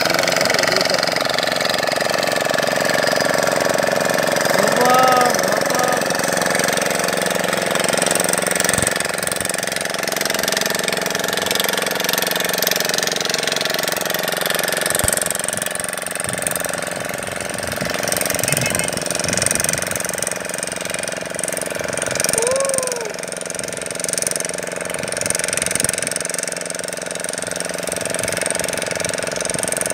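Motorboat engine running steadily with a knocking drone. Two short rising-and-falling whistle-like tones come through about five seconds in and again a little past twenty seconds.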